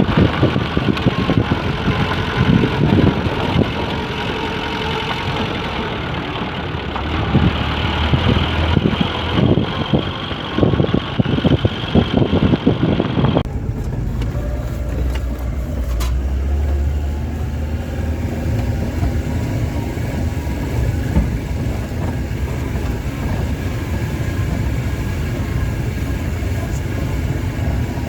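A vehicle driving, with engine and road noise. The first half has frequent knocks and jolts; about halfway it changes abruptly to a steadier low rumble.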